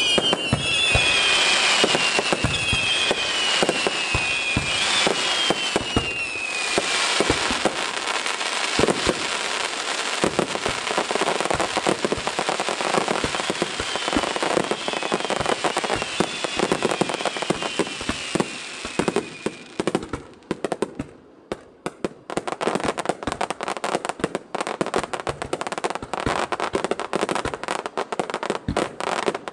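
Aerial fireworks: several whistling shells, each whistle falling in pitch, over a dense crackle of popping bursts. The crackle thins out briefly about two-thirds of the way through, then a fresh volley of sharp pops starts.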